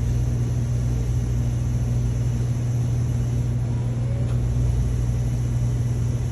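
Steady low machine hum, an even drone with no change in pitch or level.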